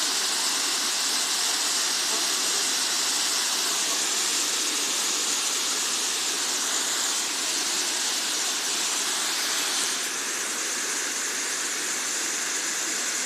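Dzhur-Dzhur waterfall: steady rushing roar of falling water, a little softer about ten seconds in.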